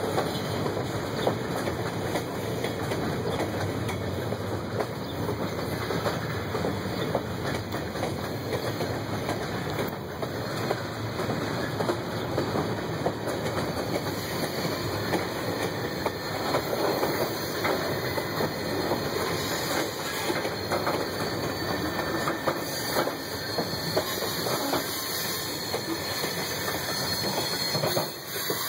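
Freight cars of a passing freight train rolling by: a steady rumble and rattle of car wheels on the rails, with frequent clicks and knocks as the wheels cross rail joints.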